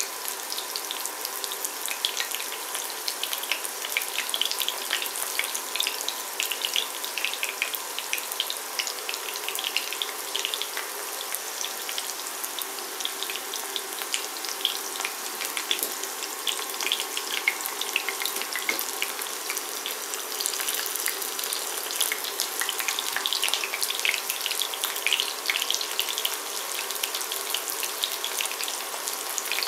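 Breaded chicken nuggets shallow-frying in vegetable oil in a ceramic pan: a continuous sizzle full of tiny crackles and pops.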